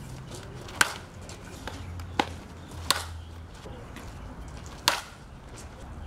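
Four sharp cracks of baseballs smacking against bats and gloves, spread a second or two apart over a steady outdoor background; the first, about a second in, is the loudest.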